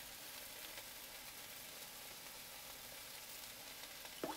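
Faint, steady sizzling of shrimp and mushrooms sautéing in a skillet, with one brief louder sound near the end.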